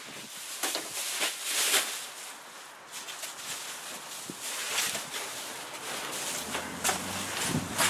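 Sheet of foil bubble-wrap insulation rustling and crinkling as it is lifted, turned and shaken out, in irregular bursts.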